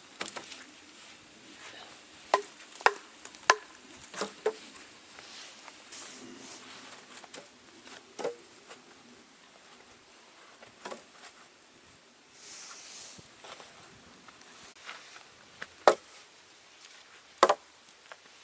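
A series of sharp knocks and snaps at uneven intervals. There is a quick cluster a few seconds in and two of the loudest single strikes near the end.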